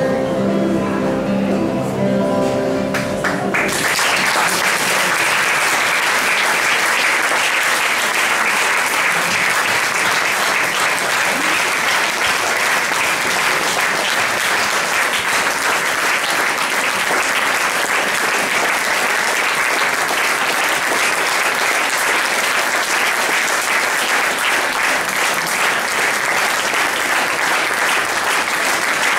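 Acoustic guitars play the final chord of a song, which stops about three and a half seconds in. An audience then applauds steadily for the rest of the time.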